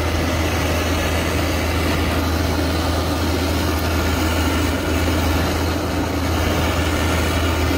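Diesel engine of a Cat 305.5E mini excavator running steadily with a low, even hum while the machine digs and grades dirt.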